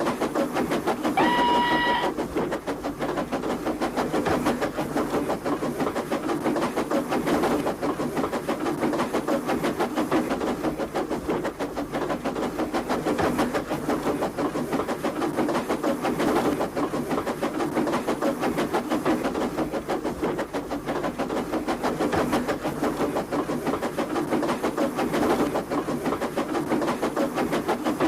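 A train sound: a steady, rapid, even clatter with one short, steady whistle toot about a second in.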